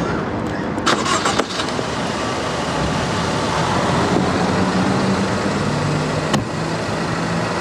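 Car engine running at a standstill under steady street noise. There are a few light clicks about a second in, and a car door shuts with a sharp knock about six seconds in.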